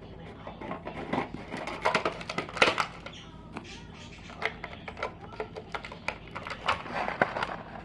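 Small plastic toy pieces and packaging being handled and put away, with irregular clicks, taps and rustles.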